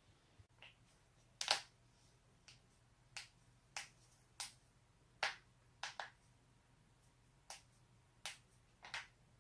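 Spinal joints in the neck and back cracking, a string of about a dozen short, sharp pops at uneven intervals, the loudest about a second and a half in.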